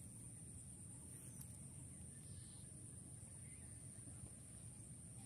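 Near silence: faint outdoor ambience, a steady low rumble with a thin, steady high-pitched whine over it.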